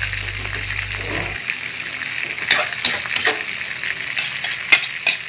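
Noodles, cabbage and pork stir-frying in a metal wok: a steady sizzle under the scrape of a metal spatula and ladle tossing the food, with several sharp clacks of the utensils against the pan from about halfway through.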